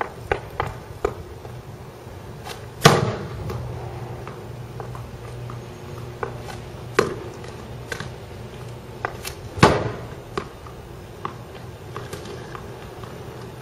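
Ice hockey stick working a puck on a paint-covered canvas over asphalt: scattered light taps and clicks, with two loud cracks of shots, about three seconds in and near ten seconds, each with a short ringing tail.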